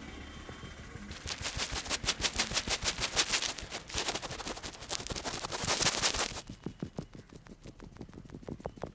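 Rapid percussive hand strokes of an Indian head massage: a fast, even run of slaps and taps on the head that starts about a second in, then turns softer but keeps the same rhythm from about six and a half seconds in.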